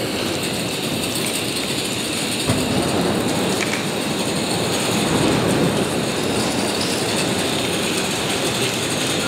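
Wall pieces made of matchsticks burning: a steady, dense crackling and fizzing as the match heads catch and burn.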